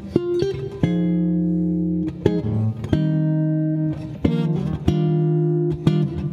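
Eastman Pagelli PG2 archtop jazz guitar played fingerstyle in chord-melody style. Full chords are struck and left to ring about once a second, with short single-note melody figures between them.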